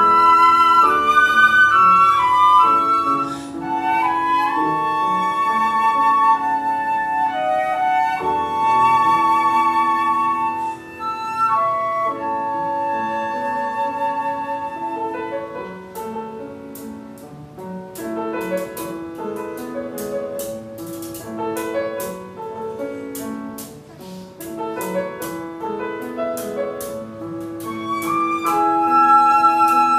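Two flutes playing a melody together in harmony over piano accompaniment. From about halfway through, light percussion taps keep a steady beat under them.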